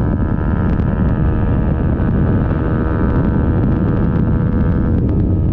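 KTM RC200's single-cylinder engine through an aftermarket Akrapovic dual exhaust, running at a steady pitch while the bike is ridden, with wind on the microphone.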